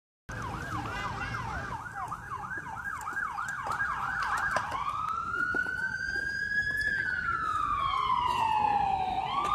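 Emergency vehicle siren: a fast yelp, about three up-and-down sweeps a second, switches about four and a half seconds in to a slow wail that rises, falls, and starts rising again near the end. A few sharp clicks sound underneath.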